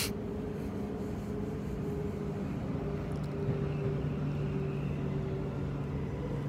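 Transperth B-series electric multiple unit train running, heard from inside the passenger carriage: a steady rolling rumble with a low, even hum.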